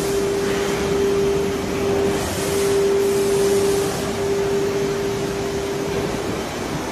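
A 9 kW air-cooled CNC router spindle running at 24,000 rpm, a steady whine near its rotation rate, over a steady rushing noise from the machine.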